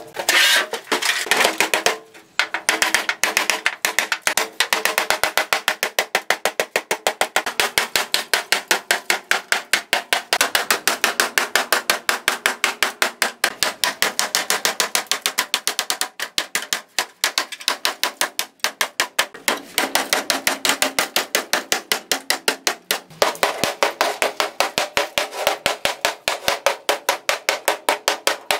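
Hammer beating a rusted steel car body panel: sharp metallic blows in quick, steady succession, with a brief pause about two seconds in.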